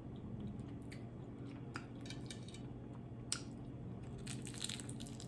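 Close-up chewing and crunching of crisp-fried tilapia: scattered small crackles, with a denser run of crunching about four seconds in.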